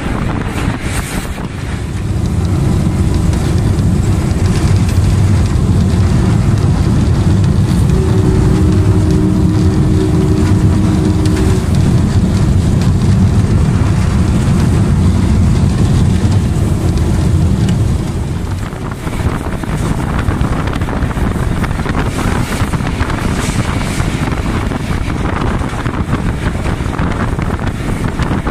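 M8 diesel locomotive running at speed, its engine giving a heavy low drone mixed with rolling noise and wind buffeting the microphone. About two-thirds of the way through, the engine drone eases off, leaving mostly wind and wheel-on-rail noise.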